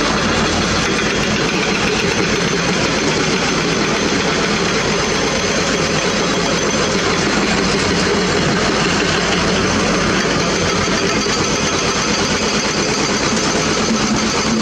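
Diesel engines of crawler excavators, Hitachi Zaxis and Komatsu PC200, running steadily as a continuous, even drone.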